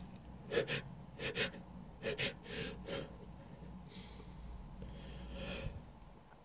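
A person's sharp gasping breaths and sniffs during a sneezing fit: short catches of breath, mostly in quick pairs, over the first three seconds, then two softer, longer breaths.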